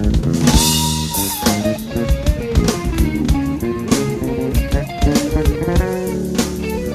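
Electric bass jam with drum kit: fast plucked bass lines with sliding notes over busy drumming, with a cymbal crash about half a second in.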